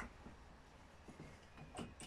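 Faint handling sounds from a chainsaw being worked on by hand: a sharp click right at the start, then a few light clicks and taps over quiet room tone.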